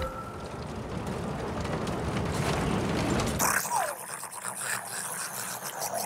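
Roller coaster car climbing the lift hill, its chain lift making a dense, fast rattling clatter. About three and a half seconds in this gives way to a thinner hissing sound with a brief falling squeal.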